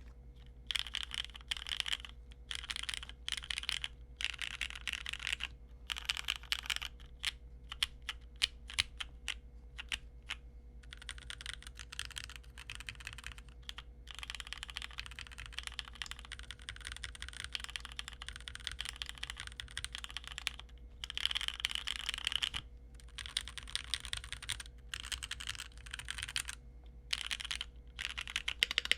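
Typing on a Keychron Q1 aluminium-cased mechanical keyboard: fast runs of keystrokes broken by several short pauses.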